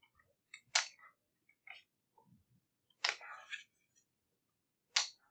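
Three sharp clicks about two seconds apart, the middle one trailing into a short rustle.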